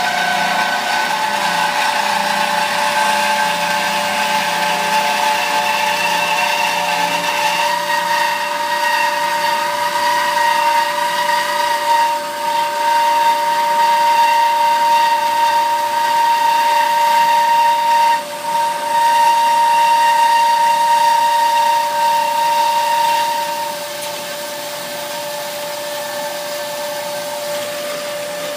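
JMT DCB-M 560 double-column band saw blade cutting through 18-inch pipe: a loud, steady whine with a strong ringing tone over a hiss. It falters briefly once, and about three-quarters of the way through it drops to a quieter steady whine.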